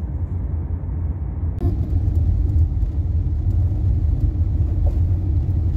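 Steady low road and engine rumble heard from inside a moving car's cabin. A little over a second in, a thin hiss joins it.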